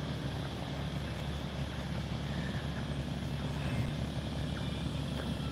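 Steady outdoor background noise: a low, even rumble with no distinct sounds standing out.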